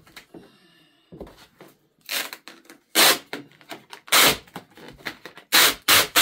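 Hard plastic parts being handled and pried at: a run of short, sharp clacks and crackles, coming quicker near the end.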